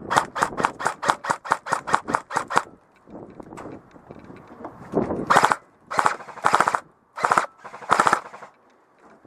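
Airsoft rifle firing: a string of about fifteen quick single shots, roughly six a second, then after a pause five short bursts.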